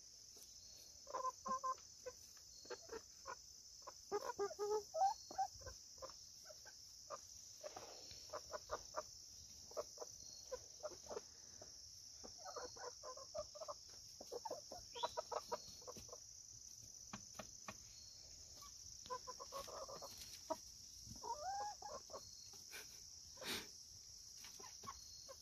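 Young chickens making soft clucks and trilling calls in short bouts every second or two, over a steady high chirring of insects such as crickets.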